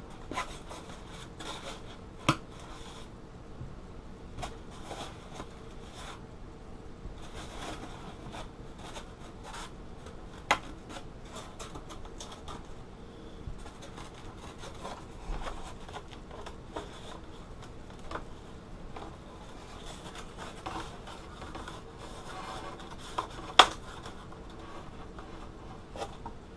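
Foam-board model airplane parts being handled and slid together: foam rubbing and scraping against foam, with a few sharp taps, the loudest near the end.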